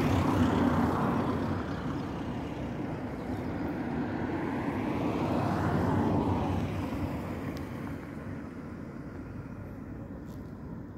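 Road traffic: the steady rush of passing vehicles, swelling as one passes near the start and another around six seconds in, then fading away.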